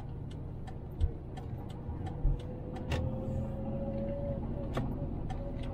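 Car driving along a city street, heard from inside the cabin: a steady low road and engine rumble with a faint steady whine, light ticking throughout, and two dull thumps about a second in and again a second later.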